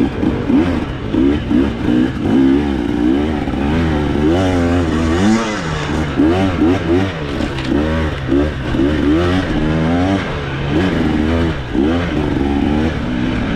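Two-stroke 300 cc engine of a 2024 KTM 300 TBI dirt bike being ridden off-road, its pitch swinging up and down with short bursts of throttle about once a second.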